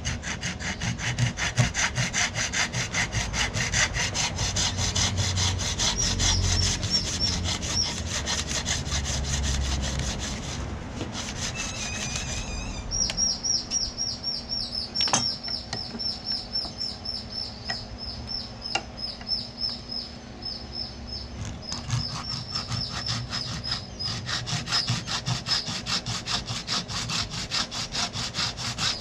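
Hand saw cutting wood in rapid back-and-forth strokes, about five a second, with a short break partway through. For a stretch in the middle a high ringing tone sounds, dipping on each stroke.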